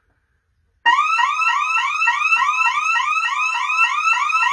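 Honeywell Vista 15P burglar alarm siren sounding, set off by the storage-room motion sensor while the system is armed away. It starts suddenly about a second in and repeats a fast rising whoop, about five a second.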